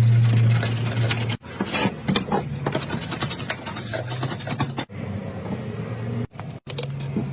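Tools scraping and rasping on wood, with a steady low hum for about the first second and a half, broken by several abrupt cuts.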